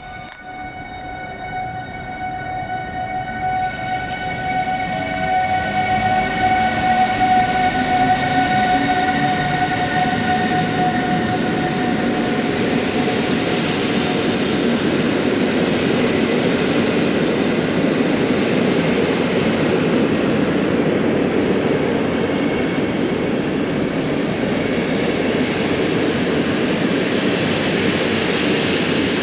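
Intercity passenger train pulling out past the platform. A steady high whine from the locomotive fades over the first dozen seconds while the rumble and rattle of the coaches rolling by builds, then holds loud and steady.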